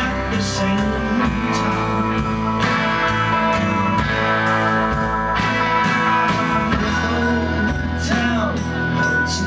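Live rock band playing: electric guitars, bass and a drum kit at a steady driving beat, about three drum hits a second.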